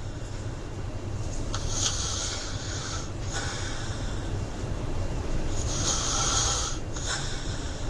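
A person snoring: two long, rasping snores about four seconds apart, one about a second and a half in and one near the end, in a steady breathing rhythm.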